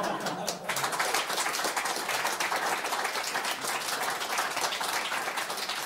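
Studio audience applauding, many hands clapping steadily, setting in about half a second in.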